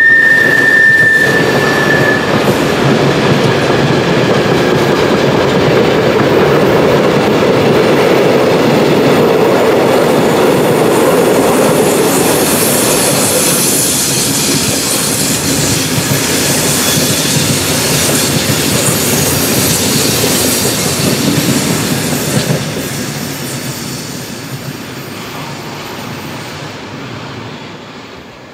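Long mixed freight train rolling past on mountain track, its wagons' wheels clattering over the rail joints. A high wheel squeal fades out in the first two seconds. The train noise dies away over the last several seconds as the train recedes.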